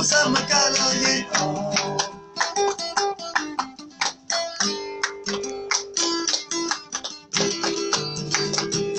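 Acoustic guitar played in a quick, steady rhythm of picked and strummed chords, the notes ringing on between strokes.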